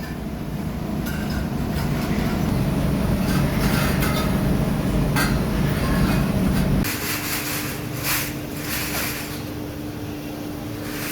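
Metalworking machinery in a kettle workshop running, with a heavy low rumble and scattered metal clicks. About two-thirds of the way in the rumble cuts off, leaving a steady hum, and short bursts of metal scraping follow.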